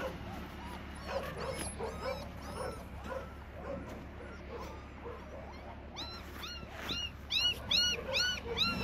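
A litter of young puppies squealing and whimpering together, cold and hungry: many short, high, arched cries overlapping, growing louder and coming about three a second over the last few seconds.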